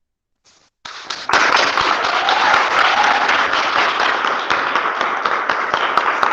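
Audience applauding, the clapping starting about a second in and staying loud and steady.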